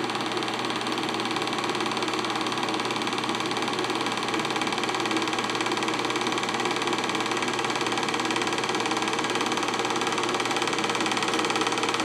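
Home-movie film projector running: a steady mechanical whir with a fast, even clatter from its film mechanism.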